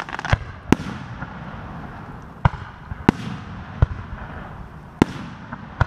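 Aerial firework shells bursting overhead: a string of about seven sharp bangs at uneven intervals, some coming in quick pairs.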